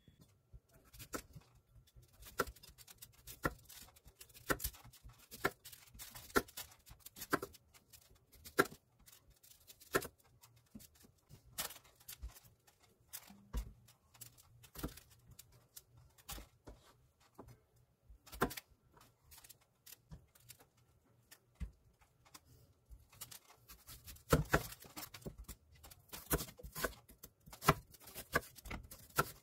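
Chef's knife slicing zucchini and onion on a wooden cutting board. Each cut ends in a sharp knock of the blade on the wood, one or two a second, coming faster in a run near the end.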